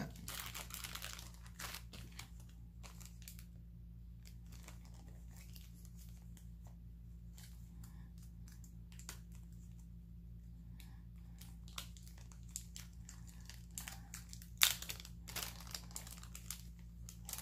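Plastic wrapping crinkling and rustling as jewelry is handled and unwrapped, in scattered crackles and clicks that grow busier near the end, with one sharper crackle. A steady low hum runs underneath.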